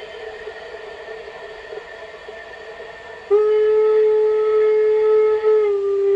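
Train horn sound played back by an MP3 player fitted for sound. A quieter hum comes first; about three seconds in, a loud, steady horn blast starts abruptly and dips slightly in pitch near the end.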